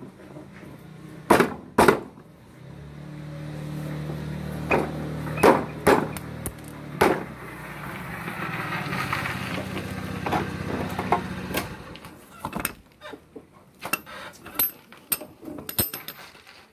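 Hammer blows on metal while working on a scooter's front wheel bearing race: two sharp knocks close together, then several more over a steady low hum that fades out after several seconds, followed by a run of lighter taps and clicks.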